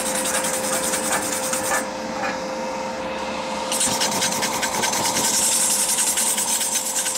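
Hand wire brush scrubbing back and forth along a steel tube, a fast rasping scratch with a short let-up about two seconds in. A steady hum runs underneath.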